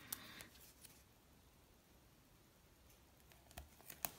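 Near silence with a few faint clicks and taps, a cluster at the start and another near the end: long fingernails and sticker backing on paper as a sticker is pressed onto a planner page.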